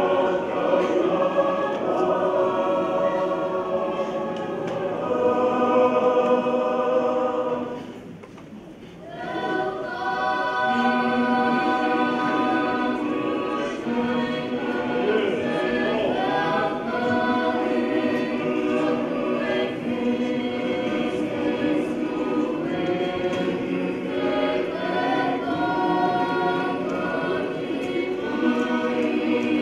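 A church choir of many voices singing a hymn in Tongan, with a short break about eight seconds in before the singing starts again.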